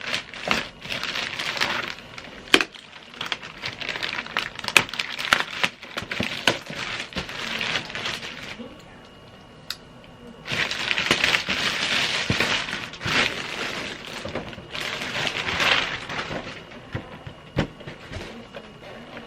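Plastic packaging bag crinkling and rustling in repeated stretches as a boxed toy figure is pulled out of it, with sharp clicks and knocks of hard plastic being handled. There is a lull of about two seconds near the middle.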